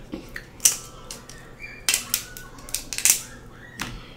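Kitchen scissors cutting through a lobster tail's shell: a series of sharp snips and crunches, about four or five strong ones a second or so apart.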